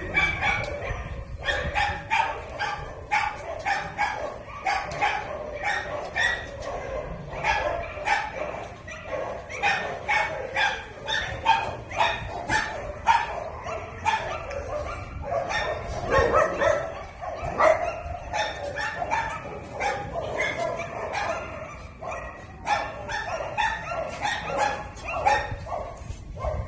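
A pack of dogs barking together, many barks overlapping several times a second without a break.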